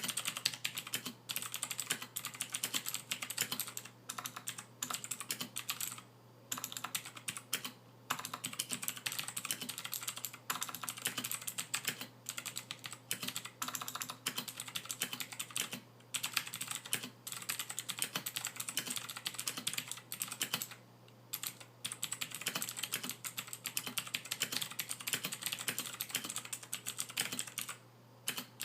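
Fast, continuous typing on a stock Royal Kludge RK61 mechanical keyboard, with unlubed stabilizers, no dampening and stock keycaps: a dense run of key clicks broken by a few short pauses.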